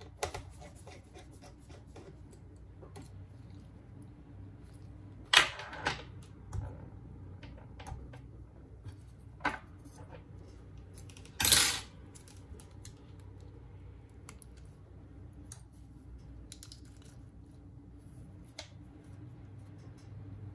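Small hand tools and phone parts clicking, tapping and clattering on a workbench during smartphone repair, with two louder clatters about five and eleven seconds in.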